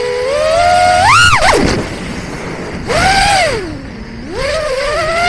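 Brushless motors and Gemfan 4052 props of a 4-inch FPV quadcopter (FPV Cycle 2203 3450kv motors), heard close up from the camera on the quad. Their whine climbs steeply about a second in, then drops away to a low rush as the throttle is chopped. It surges back a little before three seconds in, dips low near four seconds and rises again as the throttle is punched through the manoeuvre.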